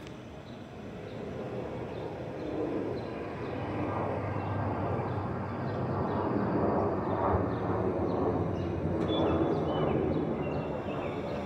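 Twin-engine jet airliner passing overhead, its engine noise a steady broad rushing sound that grows gradually louder.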